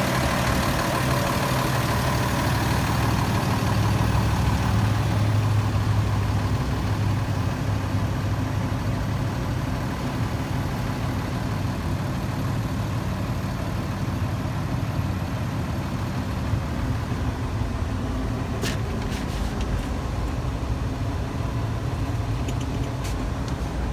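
2017 Freightliner M2 106 truck's diesel engine idling steadily, heard first beside the cab and then from inside the cab. A sharp click about three-quarters of the way through, and a few faint clicks near the end.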